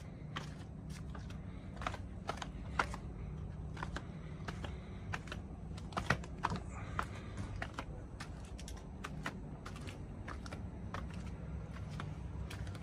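Footsteps tapping on stone paving and steps, a string of sharp, irregular clicks over a steady low hum.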